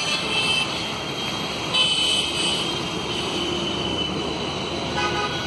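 Street traffic noise with vehicle horns honking now and then.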